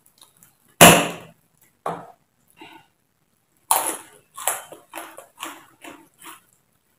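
Close-miked eating sounds: one loud crunch about a second in, then steady chewing and lip-smacking at about two a second from the middle on.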